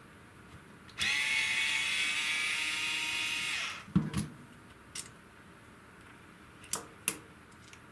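Small electric power drill spinning in a steady high whine for about three seconds, starting and stopping abruptly, followed by a few sharp clicks of parts being handled.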